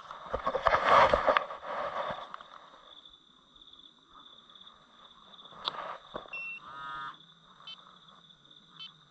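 Night insects keep up a steady high trill. A loud rustling, scuffing noise fills the first two seconds, and a few short faint calls or beeps sound later on.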